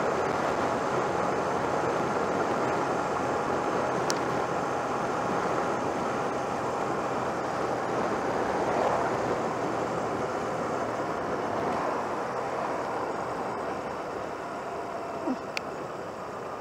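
Honda CMX250C Rebel's air-cooled parallel-twin engine running as the motorcycle rides along, mixed with steady wind and road noise, growing somewhat quieter near the end.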